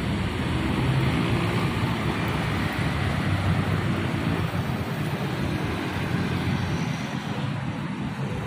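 Steady engine hum and road noise of a road vehicle on the move.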